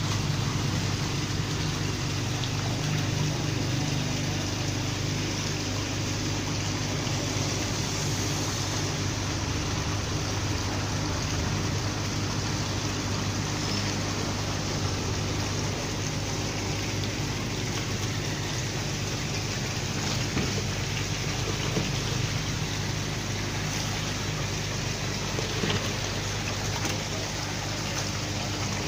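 Steady rush of water flowing and splashing into koi holding tanks, with a steady low hum underneath.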